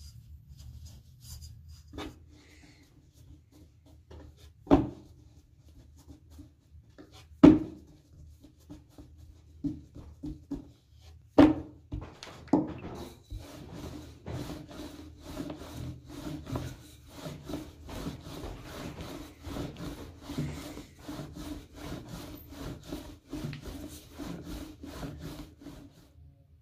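Wooden rolling pin rolling out dough on a wooden board: a fast, even rubbing, about three strokes a second, in the second half. Before it come a few sharp wooden knocks.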